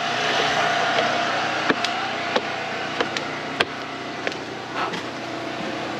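Footsteps in sandals climbing wooden stairs and walking onto a wooden deck, sharp steps about every two-thirds of a second over a steady hiss.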